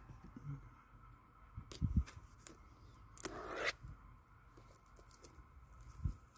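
Cardboard keyboard packaging being handled and opened: a few short scrapes and knocks, with a longer tearing scrape about three seconds in and a soft thump near the end.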